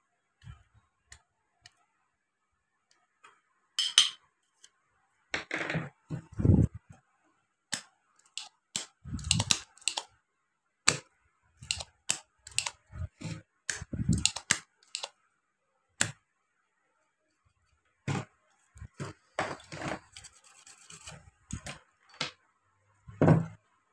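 Irregular clicks, taps and knocks of a printed circuit board and hand tools being handled on a workbench while capacitors are desoldered from an amplifier power supply board, with short quiet gaps between them.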